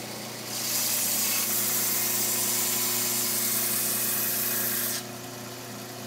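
Homemade 1-inch belt sander running steadily, with the hiss of a wooden blade being sanded to an edge against the belt. The hiss drops away about five seconds in while the motor hum carries on.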